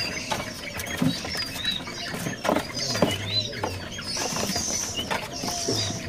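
Several caged songbirds chirping and calling over one another in short scattered notes, with a few brief clicks and knocks.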